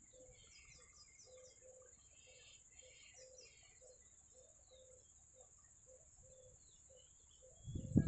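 Faint outdoor chorus: a steady high-pitched insect drone, a low note repeating about twice a second, and birds chirping in the first few seconds. Just before the end a much louder low rumble comes in.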